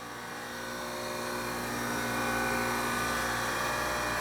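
Harig surface grinder's spindle motor running: a steady whine and hum made of several constant tones. It grows louder over the first two seconds, then holds steady. The spindle sounds decent.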